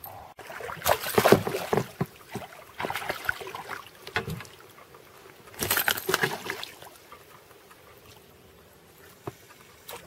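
A hooked pike splashing and thrashing at the surface as it is landed into an inflatable boat: three bursts of splashing and slapping, about a second in, around three seconds in and around six seconds in, then quieter water lapping.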